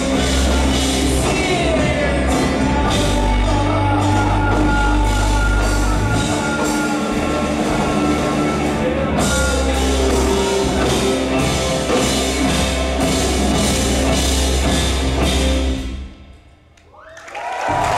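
Live band with drum kit and voices playing the loud final stretch of a song. It stops abruptly about sixteen seconds in, and audience applause and cheering begin to rise just before the end.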